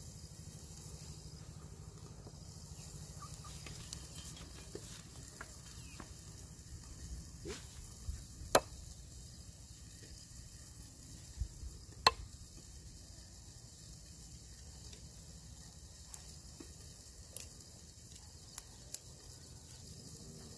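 Fish frying in a pan over a wood fire: a faint, steady sizzle, broken by a few sharp clicks, the two loudest around the middle.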